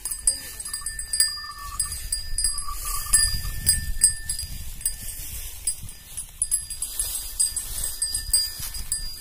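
Wind rumbling on the microphone in an open field, with repeated faint high tinkling chirps and two short tones early on.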